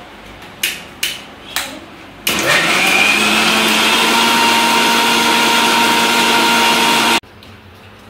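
Marbex mixer grinder with a steel jar grinding masala: three clicks, then about two seconds in the motor starts, runs steadily for about five seconds and stops suddenly.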